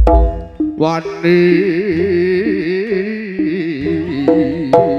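Live Javanese jaranan ensemble music heard through a PA sound system: a heavy low drum stroke at the start, then a wavering melody line. About a second in the steady beat drops out under a bright, sustained shimmer, and the beat returns near the end.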